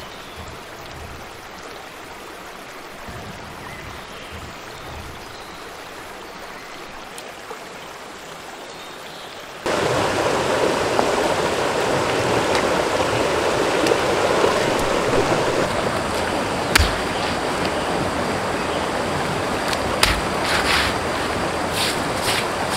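A shallow stream running over rocks makes a steady rushing sound, which jumps much louder about ten seconds in. Later come a few sharp clicks, as pebbles on the stream bank are handled.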